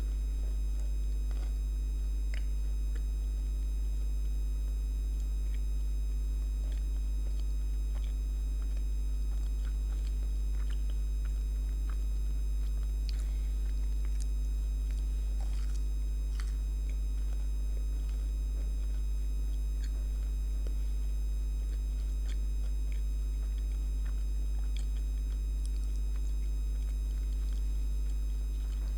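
Steady electrical buzz from a light: a low mains hum with a stack of higher steady overtones, unchanging throughout. Faint, scattered small clicks and crackles sit on top.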